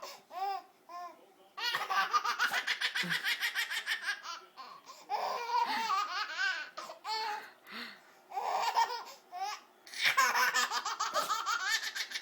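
A baby laughing, in two long runs of rapid, breathless laughter with shorter laughs and brief pauses between.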